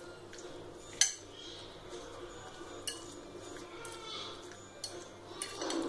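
A spoon tossing chopped fruit and dressing in a glass bowl, with a few sharp clinks against the glass, the loudest about a second in.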